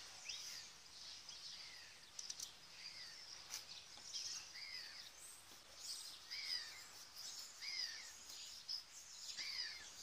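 Birds chirping repeatedly in short, often falling chirps over a faint outdoor hiss, with a few faint clicks.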